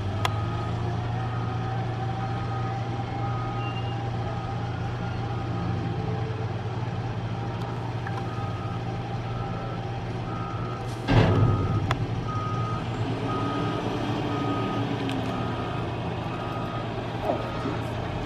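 A vehicle's electronic warning beeper sounding about once a second over a steady low engine hum, with one brief loud thump a little past halfway through.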